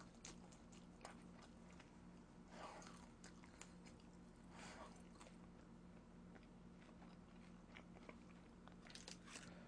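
Near silence: room tone with a faint steady low hum, two faint breaths about three and five seconds in, and a few tiny clicks.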